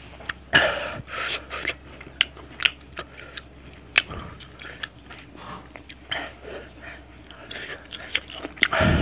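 Close-miked chewing and crunching of raw ginger slices coated in salt and chili, with sharp wet mouth clicks and short breathy hisses between bites.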